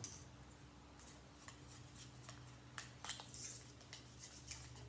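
Faint, scattered light clicks and taps of small items being handled, over a low steady hum.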